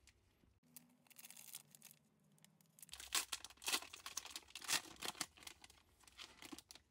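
Foil wrapper of a 1996 Upper Deck USA Basketball card pack crinkling as it is picked up and handled. From about three seconds in it tears open with loud, crackling rips.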